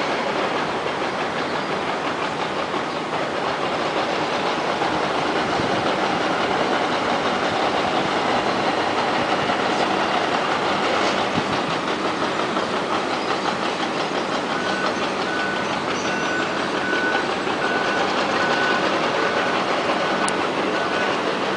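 Steady, loud mechanical rumble with no break, and a faint repeated beep joining about two-thirds of the way in.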